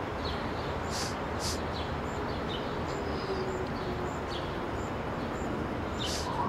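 Birds chirping over a steady background hum of distant traffic, with short hissing sounds in pairs, one pair about a second in and another near the end.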